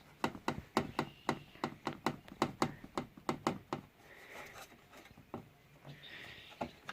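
A loose part on a Polaris Sportsman 450 four-wheeler is rattled by hand, giving quick knocks about four a second for some three seconds, then a few scattered taps. It is the annoying rattle that the owner fixed with a zip tie.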